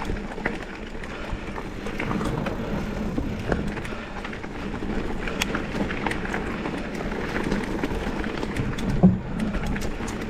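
Mountain bike rolling along a dirt singletrack: steady tyre and wind noise with scattered clicks and rattles from the bike, and a harder knock about nine seconds in.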